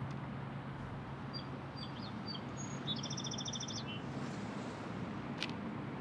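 Outdoor background with a steady low rumble. A small bird gives a few short high chirps, then a rapid trill about three seconds in. A single sharp click comes near the end.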